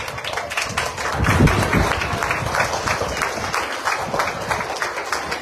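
A crowd applauding, many overlapping hand claps, as a song ends. A low rumble comes in about a second in and fades by two seconds.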